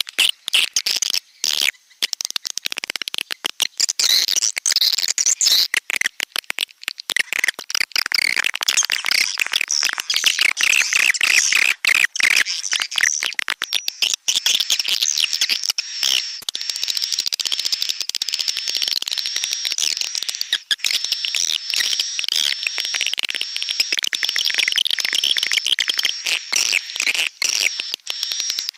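Recorded swiftlet calls of the kind played as a lure at swiftlet nesting houses: a dense, unbroken twittering of rapid high chirps and clicks. From about halfway in, a repeated wavering high trill joins them.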